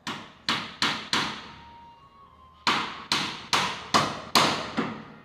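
Hammer blows: four quick sharp strikes, a pause of about a second and a half, then five more at an even pace.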